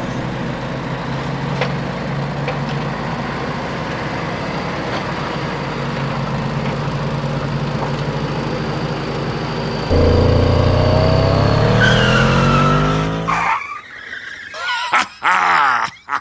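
Car engine sound effect running steadily, then revving louder with rising pitch about ten seconds in, and breaking into a short run of sharp squeal-like sounds near the end.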